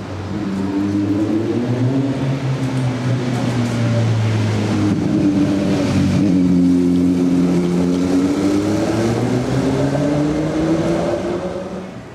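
Historic HTM tram passing close by, its motors humming with a pitch that falls and rises as it goes past. The sound drops away sharply near the end.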